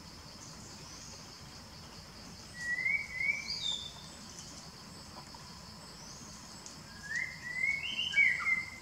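Birds calling with short rising chirps, a pair about two and a half seconds in and a quick run of them near the end, over a steady high insect drone.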